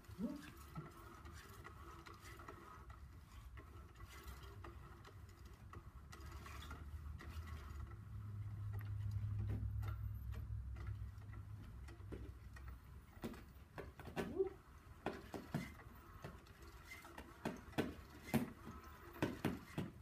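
Quiet irregular ticking and tapping around a battery-powered cat toy whose wand moves under a round fabric cover, with a low hum in the middle and a run of sharper clicks and taps in the last few seconds.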